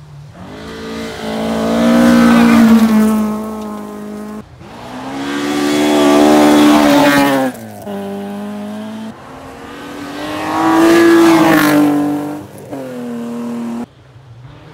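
Rally cars racing past one after another on a gravel stage, each engine revving hard and rising in pitch as it comes close, then falling away. The passes are joined by abrupt cuts, three in all.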